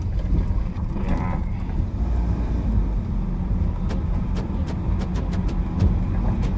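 Car interior noise while driving: a steady low rumble of engine and tyres on the road. From about four seconds in comes a run of light, quick clicks.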